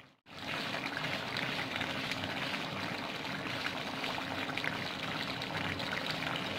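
Watery chicken-and-tomato curry bubbling steadily in a kadai on the stove as it cooks down to dry off its water. It starts just after a momentary cut-out.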